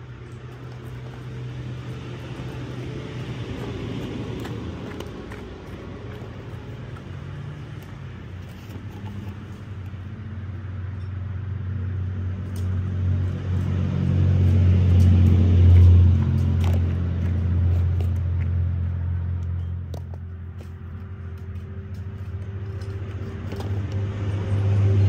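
An engine running off-screen, a low hum with a steady pitch that grows louder to a peak about two-thirds of the way through, eases off, then swells again near the end.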